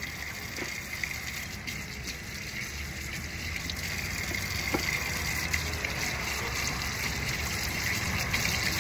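Tap water running steadily while hands are washed under it.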